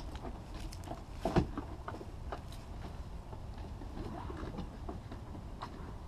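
Driver's door of a lifted off-road truck unlatching with a click, then scattered knocks, scuffs and rustles as a person climbs up into the cab, with a sharper knock about a second and a half in.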